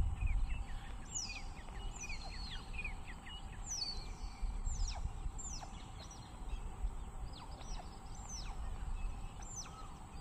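Birds calling with short, quickly falling chirps, many in the first half and a few more near the end, over a low, uneven rumble.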